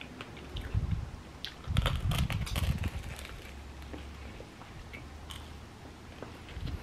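Biting and chewing a sandwich of toasted, crusty French bread with crisp lettuce and vegetables: crackly crunches, loudest in the first half, then quieter chewing.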